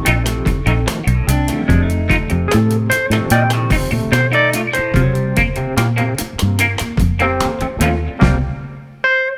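Instrumental background music with a quick, steady beat over a bass line. It fades down briefly near the end and then starts again.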